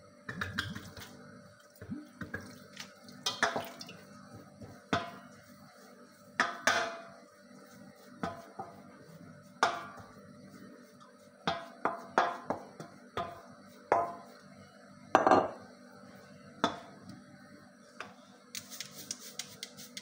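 A wooden spoon knocking and scraping irregularly against a stainless steel bowl as steamed couscous is stirred to mix in water between steamings.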